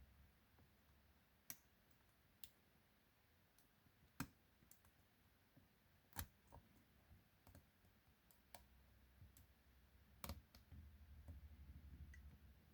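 Faint, irregular clicks of lock picks working in the cylinder of a 40mm Mi-Lock padlock, coming about a second or two apart. A faint low hum comes in near the end.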